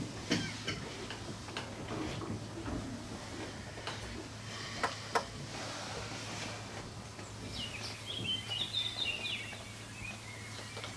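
Hall ambience during a wordless pause on stage: a steady low hum with scattered soft knocks and clicks, two sharper clicks about five seconds in, and a brief run of high squeaking chirps a little after the middle.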